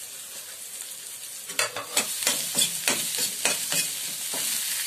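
Onion, spices and boiled potato frying in oil in a kadhai with a steady sizzle. From about a second and a half in, a metal spoon scrapes and knocks against the pan in quick strokes, about three a second, as the potato is stirred in.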